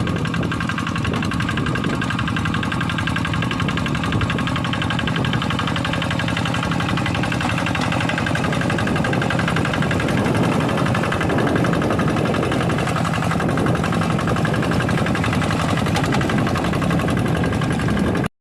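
Kubota single-cylinder diesel engine of a Quick G1000 two-wheel hand tractor running steadily under load while ploughing a paddy field. It grows a little louder about halfway through, then cuts off abruptly near the end.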